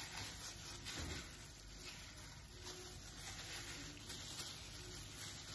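Plastic-gloved hands rubbing and turning raw chicken pieces in a bowl, a faint wet squishing with crinkling of the thin glove plastic.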